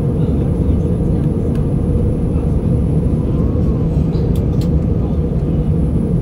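Steady airliner cabin noise in flight: a dense low rumble of jet engines and rushing air, heard from inside the passenger cabin.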